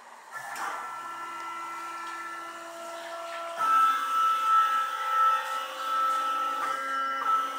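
Stepper motors driving the axes of a newly CNC-converted milling machine, whining in steady tones that change pitch and loudness as each move changes, starting about half a second in, louder from about three and a half seconds. The machine is running its first job in the air, not cutting.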